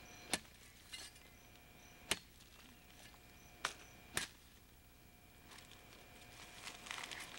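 Machete chopping into a thick jungle liana: five sharp strikes, one of them lighter, spaced a half second to a second and a half apart. Rustling of leaves and the cut vine follows near the end.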